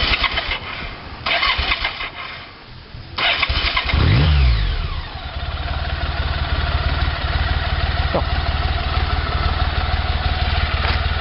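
BMW K75 motorcycle's three-cylinder engine being started: noisy cranking first, then the engine catches about four seconds in with a short rev that rises and falls. It then settles into a steady idle.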